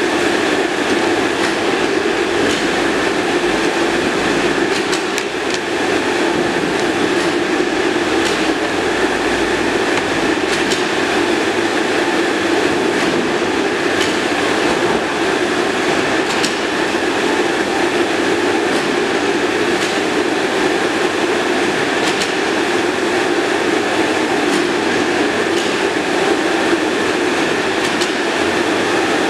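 A steady mechanical drone at a constant level, with occasional sharp clicks scattered through it.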